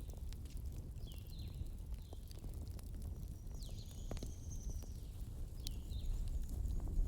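Campfire burning with a steady low rumble and scattered crackling pops from the logs. Short falling chirps from an animal in the night background come every second or two, with one longer high call about four seconds in.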